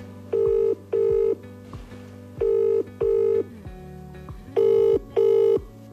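Telephone ringback tone on a speakerphone, waiting for the other end to pick up. It is the double-ring 'brr-brr' cadence, three pairs of short rings about two seconds apart. Soft background music plays underneath.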